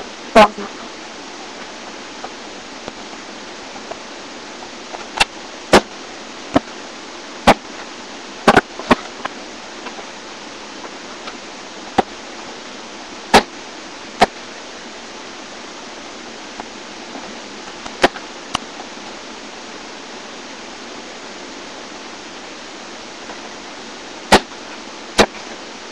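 About a dozen sharp, irregular thuds of a basketball bouncing and striking the backboard and rim, some coming in quick pairs, over a steady hiss from the webcam microphone.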